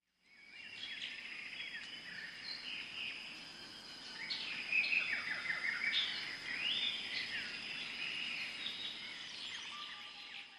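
Several small birds chirping and singing in a natural bird chorus, many short rising and falling calls and trills, with a steady high-pitched tone running underneath.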